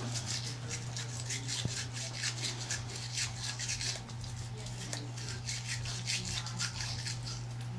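A toothbrush scrubbing back and forth on an Italian Greyhound's teeth, in quick, irregular scratchy strokes, several a second.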